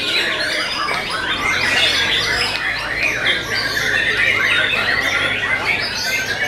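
White-rumped shamas (murai batu) singing: many birds at once in a dense, unbroken tangle of quick whistled phrases.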